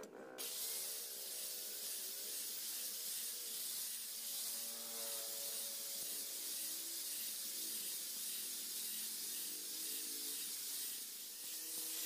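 Electric angle grinder with a flap disc grinding the face of a steel machete blade: a steady hiss of abrasive on metal, with the motor's whine wavering as the load changes.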